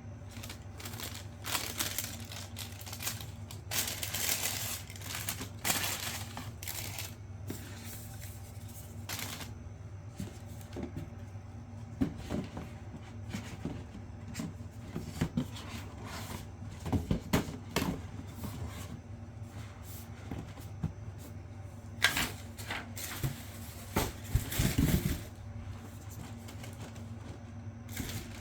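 Irregular rustling and knocking of things being handled, in short clusters, over a steady low hum.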